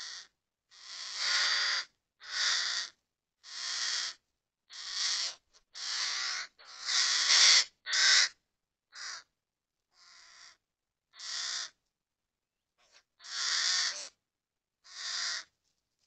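Hooded crow giving a long series of harsh caws close to the microphone, about one a second, a dozen or so in all, with a short pause near the end.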